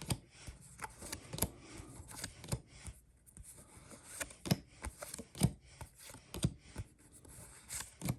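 Pokémon trading cards being flipped through one at a time: a sharp tap or snap roughly once a second as each card is moved to the back of the stack, with light sliding and rustling of card stock between.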